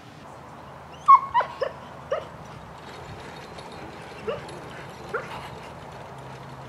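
A dog barking in short, high yips, each dropping in pitch: a quick run of four about a second in, the first the loudest, then two more spaced a second or so apart.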